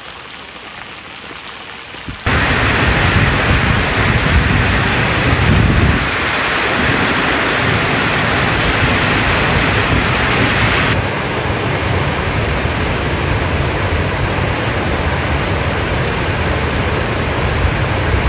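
Heavy rain falling as a steady, even hiss. It is quieter for the first two seconds, then comes in suddenly much louder. Its tone shifts abruptly twice more, around six and eleven seconds in.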